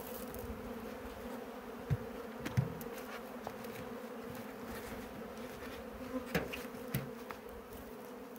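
A honeybee colony buzzing in a steady hum around an opened hive, with a few light knocks scattered through.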